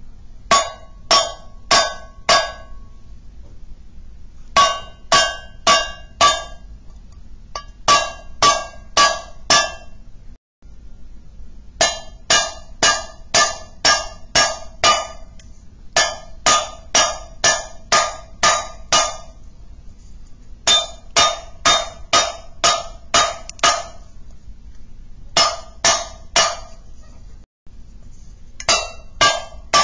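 Metal spoon tapping on an empty tin can in quick runs of four to six strikes, about two or three a second, with short pauses between runs. Each strike rings briefly with a bright metallic tone.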